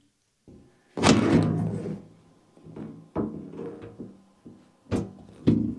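The battery's large lid being lifted off and laid open. There is a loud thunk with a ringing tail about a second in, followed by several lighter knocks and clunks of the panel as it is handled.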